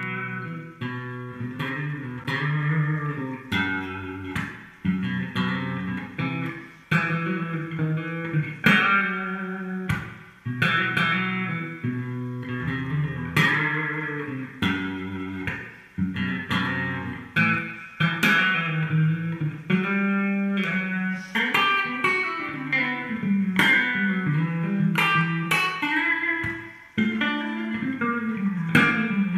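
Electric guitar playing a slow melodic lead line: sustained notes picked every second or two, some with wavering vibrato, with lower notes sounding underneath.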